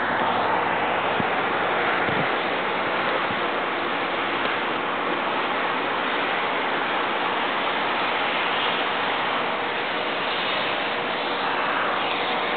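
Steady, even hiss of outdoor background noise, with two faint clicks about one and two seconds in; no blast is heard.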